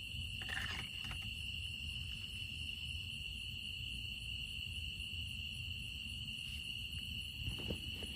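Night insects trilling in a steady, continuous high-pitched chorus, with a few faint knocks about a second in and again near the end.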